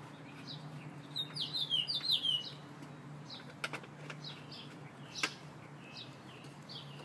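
Small birds chirping in quick series of short falling notes, loudest about a second or two in, with a few sharp clicks from a hex key working the bolts of a steel motorcycle rack. A steady low hum runs underneath.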